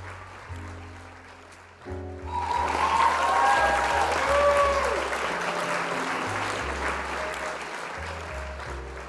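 Show intro music with a steady bass line and chords. About two seconds in, applause with some whoops swells up, peaks, and slowly dies away.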